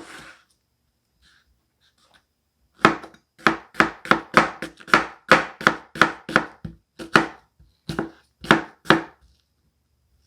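A 9-inch Dalstrong Pitmaster knife chopping through an onion on a cutting board. About three seconds in, a quick run of about twenty sharp knocks of the blade on the board begins, about three a second, and stops about a second before the end.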